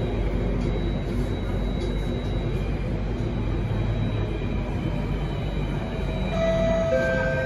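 Alstom Metropolis C830 metro car in motion, heard from inside the cabin: a steady rumble of wheels on rail and running gear. About six seconds in, steady tones come in over it, first one and then a second, lower one.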